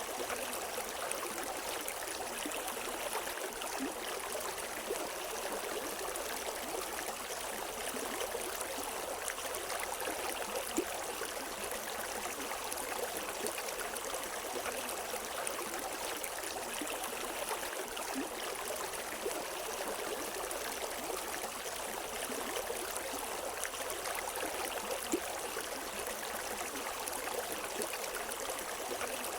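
A river stream flowing steadily over rocks, an even rushing with small splashes and gurgles and no birdsong.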